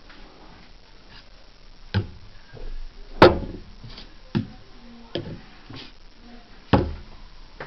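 Several separate knocks and clicks at uneven intervals, the loudest a little past three seconds in.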